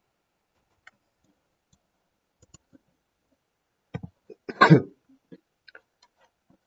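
A man coughs once, briefly, about two-thirds of the way in, the loudest sound here. A few faint computer keyboard and mouse clicks come before it.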